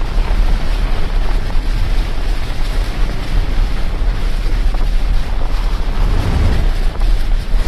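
Layered sound effects: a loud, continuous rushing noise with a deep rumble underneath, swelling slightly in the low end about six seconds in.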